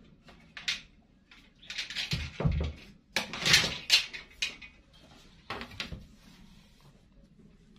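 Knocks, taps and scraping of a large plastic pattern-drafting set square being handled and laid down on fabric over a table, loudest and most frequent from about two to four seconds in, with a few more knocks about six seconds in.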